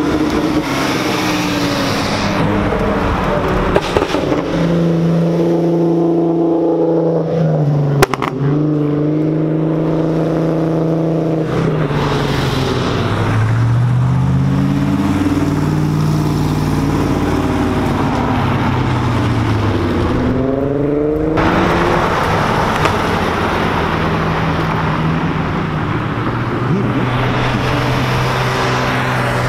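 Sports cars, among them Porsche 911s, accelerating past one after another, each engine rising in pitch and then falling away as it goes by. There is one sharp crack about eight seconds in.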